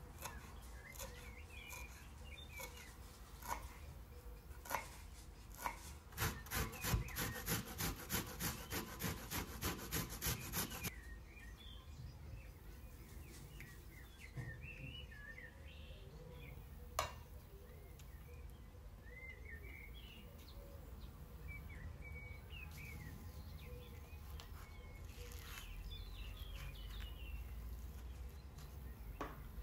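A knife chopping on a wooden cutting board in a run of quick, even strokes from about six to eleven seconds in. Birds chirp in the background throughout, and there is a single sharp knock partway through.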